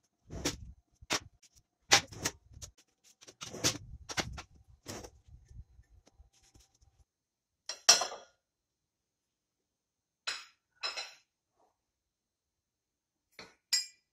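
Kitchenware clattering: a quick run of knocks and clinks for the first half, then a few separate sharp knocks, the loudest about eight seconds in, as a spatula and plate knock against a glass mixing bowl.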